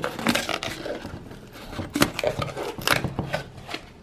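Foil seal being peeled off the rim of a plastic shake-powder tub: an irregular run of crinkling, tearing crackles.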